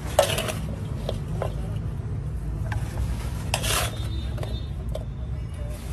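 Hands and a small steel bowl scooping masala-coated vegetables in a large steel basin: rustling and scraping, with two louder scrapes (near the start and about three and a half seconds in) and a few light clicks of steel. A steady low rumble runs underneath.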